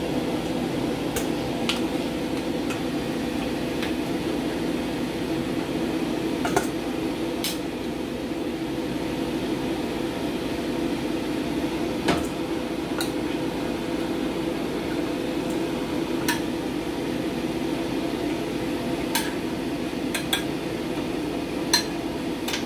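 A metal ladle scooping steamed fish from a pan into a stainless-steel bowl: scattered sharp clinks and knocks of metal on metal over a steady low hum.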